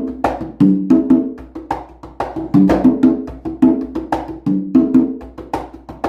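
Meinl conga and tumbadora fitted with synthetic beMBé heads, played by hand in a repeating pattern: ringing tones on a higher and a lower drum, with sharper strokes in between.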